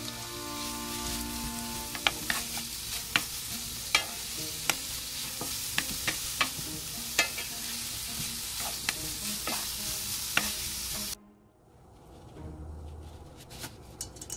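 Julienned carrot and green pumpkin (Korean zucchini) sizzling as they are stir-fried in oil in a nonstick frying pan, with a wooden spoon clicking against the pan at irregular moments, every second or so. The sizzle cuts off suddenly about eleven seconds in, leaving only faint low noise.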